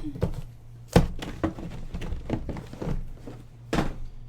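A series of short, hard knocks and thunks from objects being handled and set down, the loudest about a second in and again near the end, with lighter taps in between.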